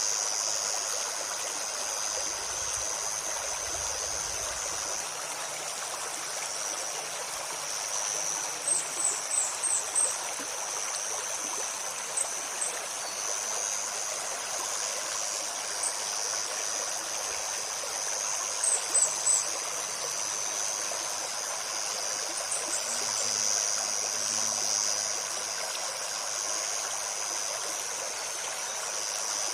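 A forest stream flowing and burbling steadily, under a constant high insect drone. Several times, a bird gives quick runs of three or four short high chirps, the loudest sounds.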